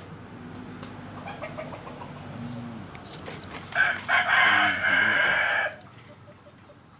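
A rooster crowing once, a single call of about two seconds starting a little past halfway through.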